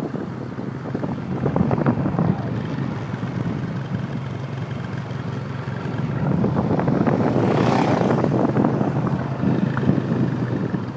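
Wind buffeting the microphone over a steady low engine hum while riding a motorbike. About seven to eight seconds in, an oncoming motorcycle passes, and the sound swells for a couple of seconds.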